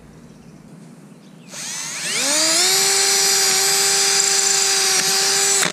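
Milwaukee cordless drill spinning up with a rising whine about a second and a half in, then running steadily as a twist bit drills through the flattened aluminum ski-pole end. It stops suddenly near the end.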